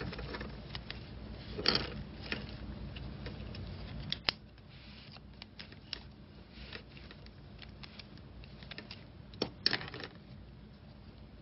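Hands working a clear tatting shuttle and thread: soft rustling with scattered small clicks and taps, a few sharper ones about two seconds in, after four seconds and near the end.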